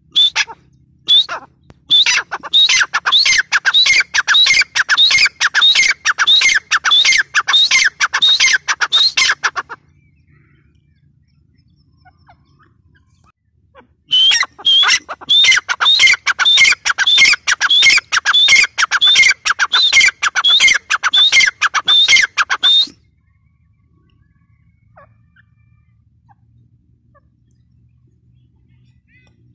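Female grey francolin (teetar) calling: two long runs of rapid, shrill, repeated notes, about three a second, each run lasting around eight seconds with a pause of a few seconds between them.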